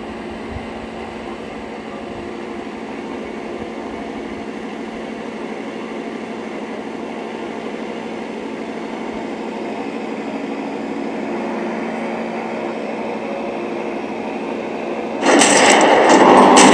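Steady drone of a piston-engined propeller aircraft in flight, slowly growing louder; about fifteen seconds in it jumps suddenly to a much louder, noisier engine sound.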